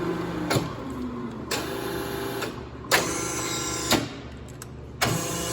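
Amada HA250W horizontal bandsaw working in manual mode: the hydraulic material shuttle moves in short runs of steady machine hum. Each run starts and stops abruptly, with a sharp clunk about three seconds in and another near the end.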